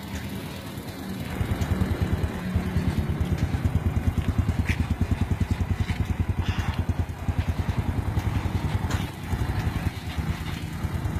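Single-cylinder four-stroke 150 cc engine of an automatic ATV running as it is ridden, with a rapid, throbbing beat. It pulls harder about a second in and eases off briefly near the nine-second mark.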